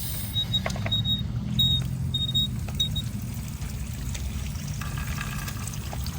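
Water running through a garden hose on an outdoor hose bib, leaking from the hose, heard as a steady low rushing.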